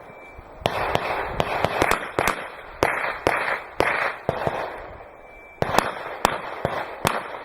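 Rapid pistol fire: a long string of quick, sharp shots, about two to three a second, each trailed by echo, with a pause of about a second a little past the middle before another fast string.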